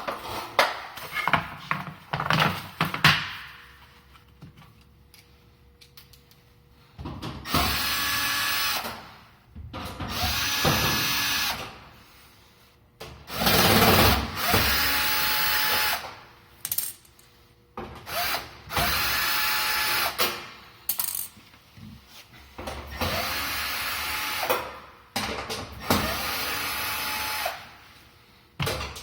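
Cordless drill/driver run in short bursts, about eight times, each one to two seconds, its motor whine rising as it spins up and falling as it stops: backing screws out of an electric range's panels. Handling clicks and knocks come first.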